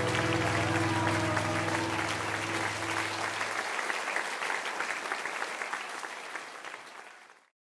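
Audience applause under the last held chord of the band's music. The chord stops about halfway through, and the applause carries on and fades out near the end.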